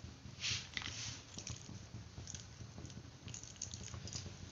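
Faint steady low hum of a gas burner heating a frying pan of oil, with a few soft small clicks and rustles.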